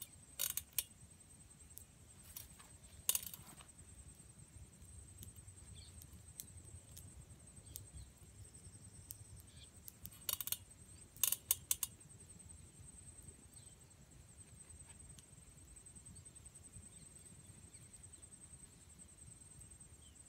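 A few brief sharp clicks and pops in small clusters: one near the start, one around three seconds in and one around ten to eleven seconds in. Under them runs a faint, steady, high-pitched hum.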